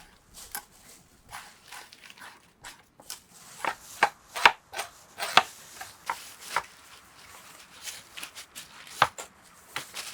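A run of irregular sharp knocks and clicks, densest and loudest between about three and six seconds in, with one more strong knock near the end.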